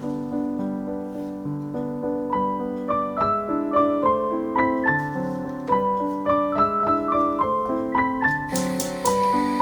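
Background piano music playing a melody of short, stepping notes over held chords; a hiss of noise joins near the end.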